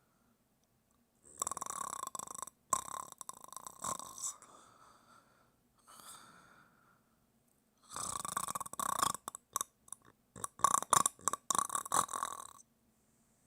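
A person snoring: rough, rasping snores about a second long come one after another with quiet gaps between them. Near the end they break up into a quick run of short, choppy snorts.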